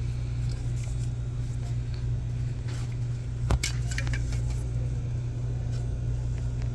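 Steady low hum of a car cabin. About three and a half seconds in there is a short cluster of sharp clicks and a knock.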